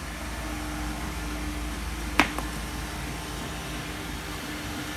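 Steady building-site background with a low rumble and a faint steady hum. About two seconds in comes a single sharp knock, the loudest sound, with a fainter knock just after.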